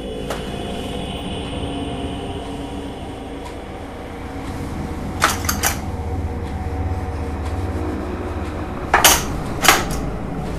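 Metal knives and tools clinking as they are laid into a plastic cutlery tray in a kitchen drawer: a quick run of three clinks about halfway through, then two sharper ones near the end. A low steady drone runs underneath.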